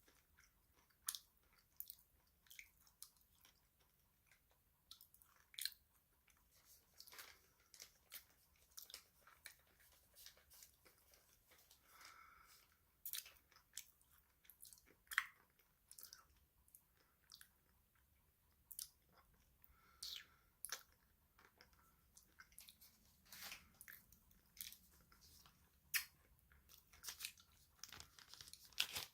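A person chewing crunchy snacks up close to the microphone, such as cookies or chocolate. Irregular sharp crunches and crackles come one after another, a few much louder bites among fainter chewing.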